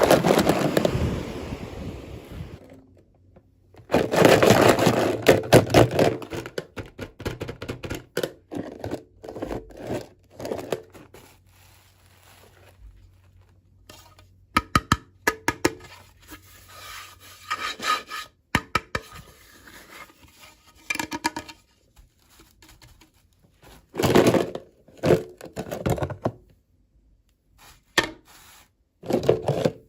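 Hands unboxing miniature dolls: irregular rubbing, scraping and clicking of the packaging and small parts, with several louder bouts of handling.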